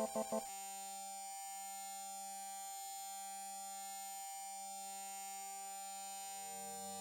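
Electronic composition evoking the sounds heard during partial epileptic seizures: quick pulsing synthesized beeps stop about half a second in. They leave a steady, high-pitched sustained synth tone over a faint low drone. Deeper synth tones swell in near the end.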